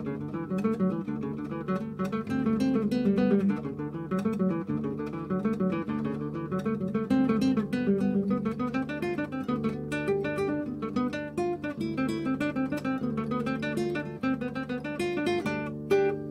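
Instrumental acoustic guitar music: quick plucked notes over a steady held bass note.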